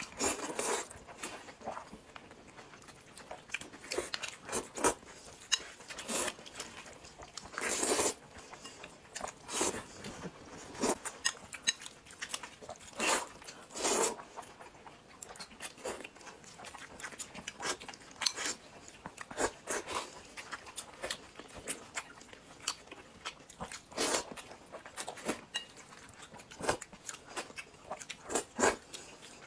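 Two people eating noodles close to the microphone: irregular wet slurps of noodle strands being sucked in, with chewing between them, roughly one to three sounds a second.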